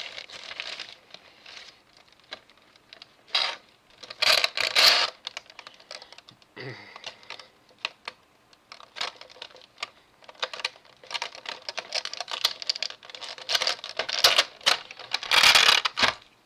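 Packaging of a scale-model kit part being opened and handled: irregular rustling and light clicks, with louder bursts of rustling about four seconds in and near the end.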